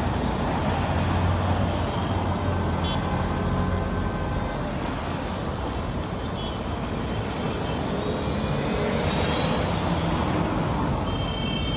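Road traffic on a wet street: cars passing steadily, with engine hum and the hiss of tyres on the wet road. The low hum is strongest in the first few seconds, and the tyre hiss swells about eight to ten seconds in.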